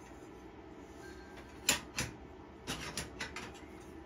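Laser-cut steel plates being slotted into a steel frame: about six light metal clinks and taps in the second half, the first the loudest.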